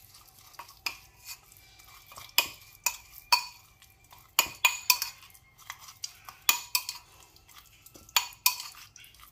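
Metal spoon stirring a marinade in a ceramic bowl, clinking and scraping irregularly against the bowl's sides.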